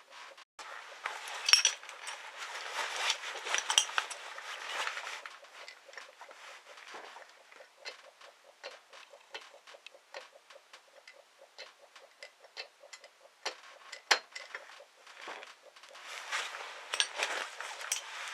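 Metal clinking and tapping, hand tools and small metal parts knocking together: a busy cluster at the start and again near the end, with a run of lighter ticks between.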